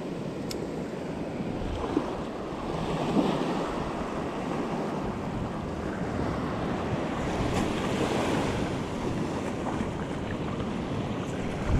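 Small surf breaking and washing up a sandy beach in swells, with wind buffeting the microphone.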